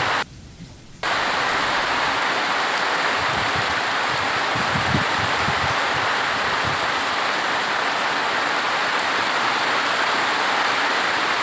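Steady heavy rain, a dense even hiss that briefly drops away for under a second just after the start.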